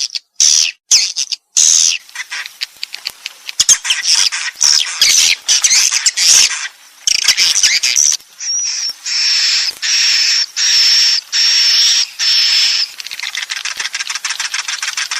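A flock of swiftlets calling: dense, high twittering chirps mixed with rapid clicks. About eight seconds in comes a run of evenly spaced, steady high calls, each about half a second long, before the busy chirping returns.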